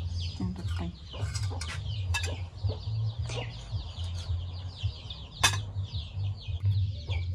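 Metal spoons clinking and scraping on ceramic plates and an enamel pot as tomato sauce is served, with one sharp clink about five and a half seconds in. Behind it, birds chirp constantly and chickens cluck, over a steady low hum.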